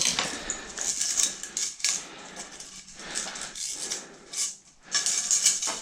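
Irregular clicks, taps and short rattles of hard plastic and metal parts being handled and pushed into place as a blind is fitted to its mounting brackets.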